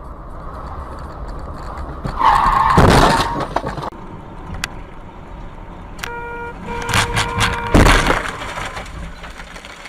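Car collision heard from inside a vehicle: a loud crash about two seconds in, then a car horn sounding twice, and another loud impact near the end of the second honk.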